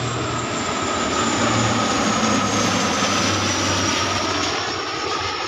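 A high-wing turboprop airliner flying low overhead on its landing approach. Its engines give a steady drone, and a high whine slowly falls in pitch. It grows louder for the first couple of seconds, then fades.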